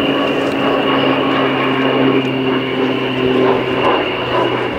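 Aircraft engine running at a steady pitch: a loud, even roar with a steady hum and a thin high tone above it.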